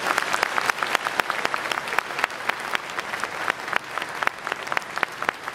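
A large audience applauding together, a dense, continuous clatter of many hands clapping.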